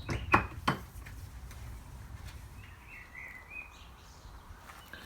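Outdoor background with birds chirping faintly around the middle, after a few sharp clicks in the first second.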